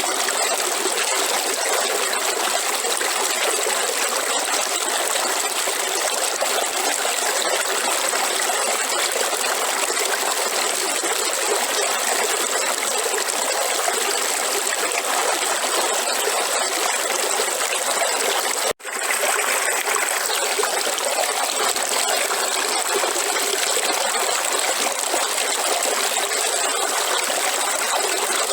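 Steady rush of flowing river water, with a split-second break about two-thirds of the way through where the sound cuts out and comes straight back.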